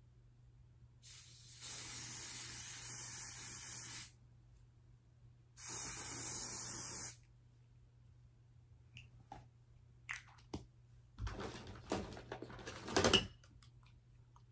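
An aerosol hair spray sprays onto a wig's lace frontal in two steady hisses, one of about two and a half seconds and then one of about a second and a half, to hold the lace down. Then come a few seconds of irregular rustling and tapping, loudest near the end.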